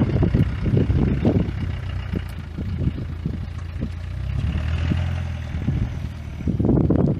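Land Rover Discovery engine running as the 4x4 pulls away along a rough, muddy track, a steady low note that grows louder a few seconds in. Irregular gusts of wind buffet the microphone over it.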